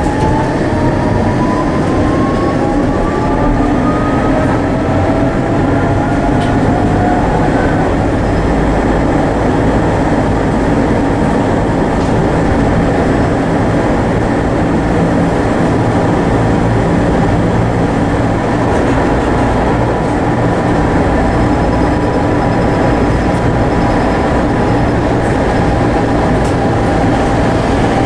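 Tatra T6A5 tram heard from inside the passenger car while under way: a steady running rumble of wheels and running gear. Over the first several seconds a thin electric whine rises in pitch as the tram picks up speed, then settles into a steady tone.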